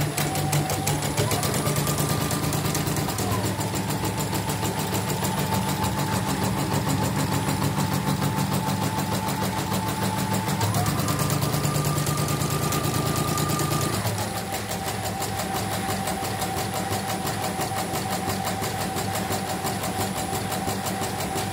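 CNY E900 portable embroidery machine stitching out a design on a test run after repair, running steadily with a fast even needle rhythm. Its motor rises in pitch for a couple of seconds about a second in, and again for a few seconds around the middle, then drops back.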